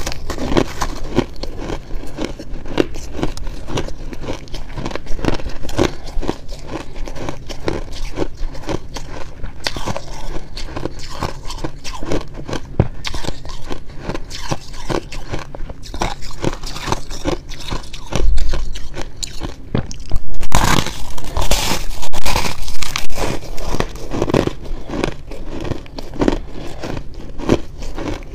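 Close-miked crunching and chewing of frosty shaved-ice blocks, a fast, dense run of crisp cracks. The crunching gets louder about two-thirds of the way in.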